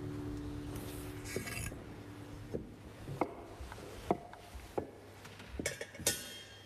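Scattered light knocks, clinks and rustles as communion trays are handled and set down on a table, with footsteps, after the last held notes of music die away about a second in.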